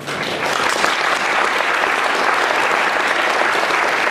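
Audience applauding: many hands clapping together, swelling quickly at the start and then holding steady.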